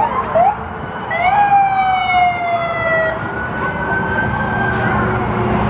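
Siren giving two short rising whoops, then a sharp rise into one long wail that falls slowly for about two seconds. Under it runs the steady low rumble of a large motorcoach engine passing.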